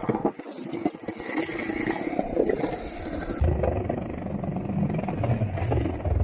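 Low rumble of jet aircraft passing over, coming in about three and a half seconds in and holding.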